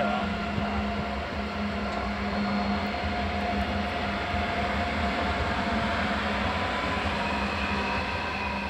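Renfe AVE Class 103 (Siemens Velaro E) electric high-speed train pulling away from the station and passing close by: a steady rush of wheels and running gear with steady hum tones over it, easing slightly as the last car goes by.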